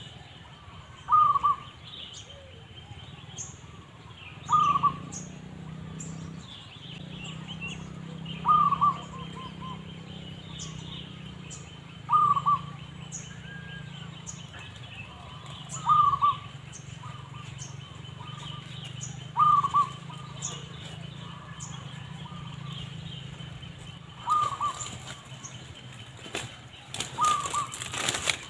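Zebra dove (perkutut) call repeating about every three and a half to four seconds, each a short loud coo phrase, with faint chirps from other birds between. A burst of sharp clattering comes near the end.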